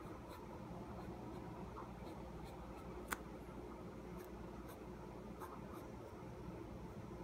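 Pen nib scratching and ticking faintly on paper while inking lines over a pencil drawing, over a steady low hum, with one sharp click about three seconds in.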